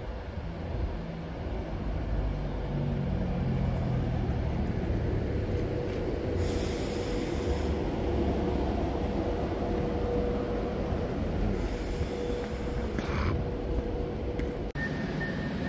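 Avanti West Coast Class 390 Pendolino electric train running into the platform, with a low rumble of wheels on rails and a steady whine through the middle. Two short bursts of hiss come a few seconds apart. A high steady tone starts near the end.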